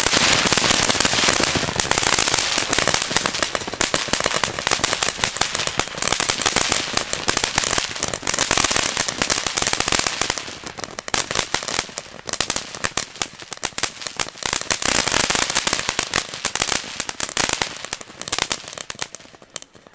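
Lesli firework fountain hissing and crackling as it sprays a column of sparks, fading briefly partway through and dying away near the end.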